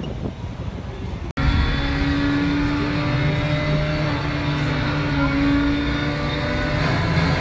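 Low rumbling noise, then after an abrupt cut a steady mechanical drone with several held pitches that waver slightly.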